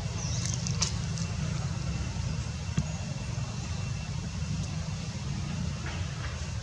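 Steady low background rumble, with a faint thin high squeak or two about a second in.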